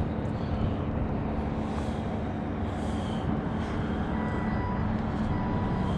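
Steady low engine rumble with a constant hum, and faint short high beeps repeating about once a second in the second half.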